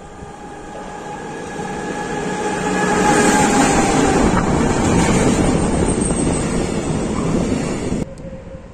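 Freight train hauled by a ČD Cargo electric locomotive approaching and rolling past close by, growing steadily louder with a faint whine, then a loud rush and rumble of covered freight wagons going by. The sound cuts off suddenly near the end.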